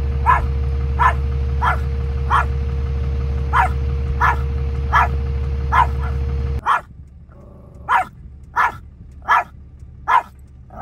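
Chihuahua yapping: short, sharp, evenly spaced barks, about three every two seconds. A steady vehicle engine hum runs under the first two-thirds and cuts off suddenly, leaving the barks over a much quieter background.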